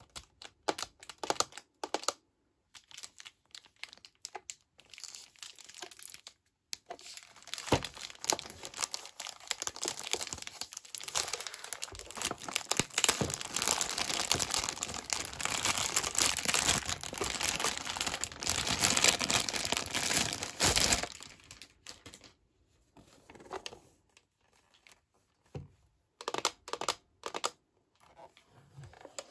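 Clear plastic wrapping crinkling as hands work it off a plastic toy case: scattered crackles at first, dense continuous crinkling for much of the middle, then scattered rustles again near the end.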